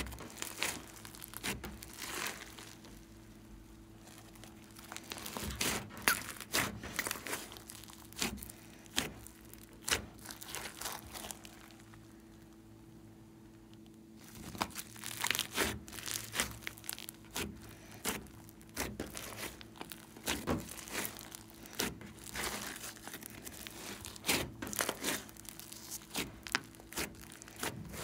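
Hands squeezing, pressing and stretching a big mass of slime filled with foam beads, giving dense crackling and popping clicks with squishes, which thin out to quieter slow stretching twice.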